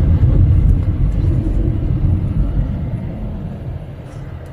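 Car driving, heard from inside the cabin: a steady low rumble of engine and tyre noise that slowly grows quieter.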